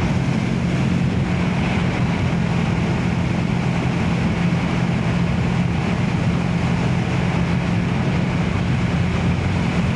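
Motorcycle engine running at a steady cruising speed, a constant hum that neither rises nor falls, under steady wind and road noise.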